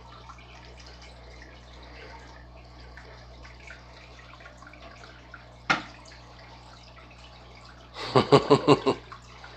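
Aquarium water trickling over a steady low hum, with one sharp knock a little over halfway through and a brief burst of rapid laughter near the end.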